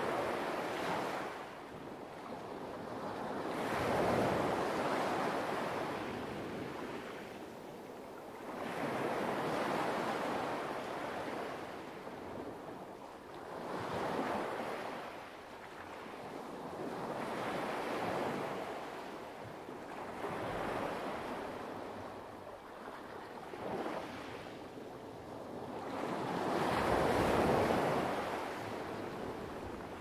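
Light waves washing onto a pebble beach, each wave swelling and ebbing every four or five seconds, about seven times, with the biggest surges about four seconds in and near the end.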